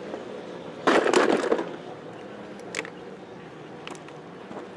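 Handling noise at a plastic cooler as a live fish is being put in: a short, loud burst of clattering about a second in, then a couple of single knocks.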